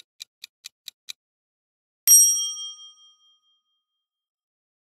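Countdown timer sound effect: a clock ticking about four times a second, stopping after about a second. About two seconds in comes a single bright bell ding that rings out for about a second, signalling that time is up and the answer is revealed.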